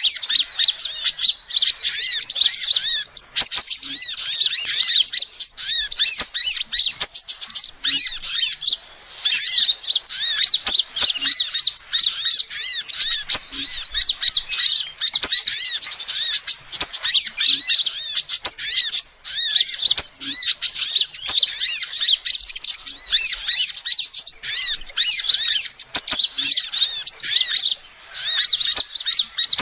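Female sunbird calling: a fast, almost unbroken stream of high-pitched chirps and twitters, pausing only briefly a few times.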